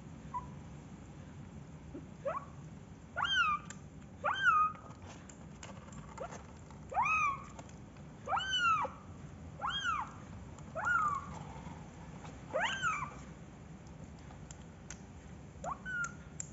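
A kitten meowing repeatedly: about eight high-pitched meows, each rising then falling in pitch, a second or so apart, then a few shorter, fainter mews near the end.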